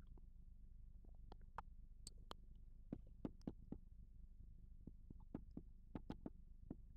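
Chalk writing on a blackboard: a string of short taps and scratches, more frequent from about three seconds in, over a low steady hum.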